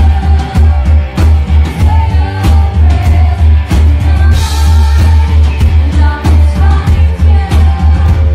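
Live rock band playing loud: drums, electric guitar and heavy booming bass, with a woman singing. A crowd-held phone recording, dominated by the bass.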